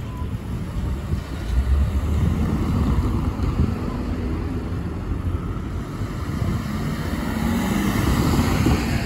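Street traffic: cars driving past with engine hum and tyre rumble, swelling twice and loudest near the end as a van passes close by.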